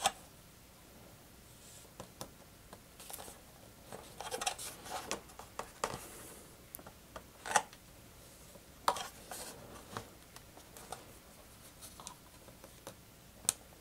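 Faint handling sounds of the foam and plastic parts of an E-Flite PT-17 model biplane: scattered small clicks, creaks and rubbing as hands work the wing strut pins into their sockets, with a few sharper clicks about halfway through.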